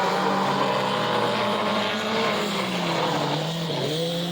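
Race car engines running at speed, with several engine notes at once; the pitch drops about three and a half seconds in, then rises again.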